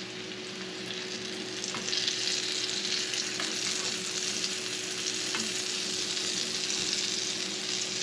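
Cassava egg balls frying in shallow hot oil in a nonstick pan: a steady sizzle that grows a little louder about two seconds in. A few faint clicks come from the metal spoon turning them against the pan.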